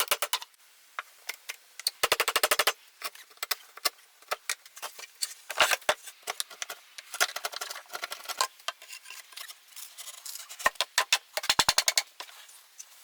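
Hand tools working wood while cutting a groove: several bursts of rapid sharp taps and clicks, with single knocks between them.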